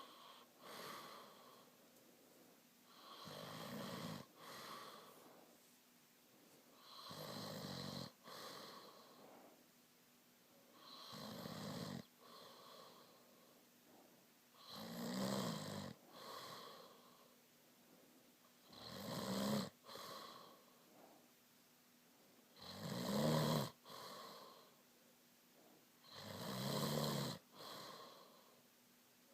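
A person snoring in sleep: a loud rasping snore about every four seconds, each followed by a softer breath out, about seven snores, growing louder toward the end.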